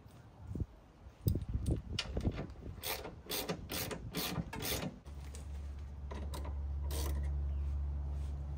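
Hand ratchet clicking through a quick series of strokes as it turns a bolt on a front coilover mount, for about three seconds. A steady low hum follows from about five seconds in.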